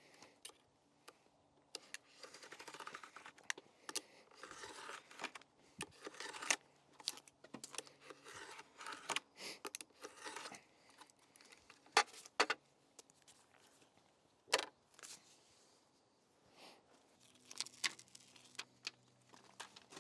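Hand-work handling noises: irregular light clicks, knocks, rustling and tearing or scraping as a trim piece is cut to size and fitted by hand, with a faint low hum underneath.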